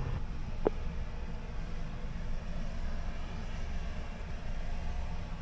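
Outdoor street ambience: a steady low rumble with a faint hiss over it, and a single sharp knock about two-thirds of a second in.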